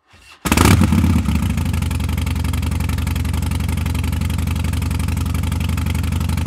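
Harley-Davidson Street Bob's Twin Cam 96 V-twin idling through Vance & Hines Twin Slash aftermarket mufflers. It comes in abruptly about half a second in, a little louder at first, then settles into a steady, loping idle.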